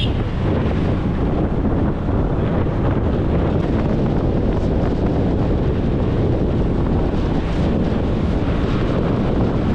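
Strong wind buffeting the microphone of a motorbike moving at speed, a steady rushing noise heaviest in the low end.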